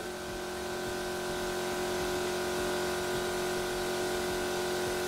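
Compressed-air gun blowing a steady jet through a large venturi tube, a loud even hiss with several steady tones in it, starting suddenly, together with an air compressor that has switched on and is running.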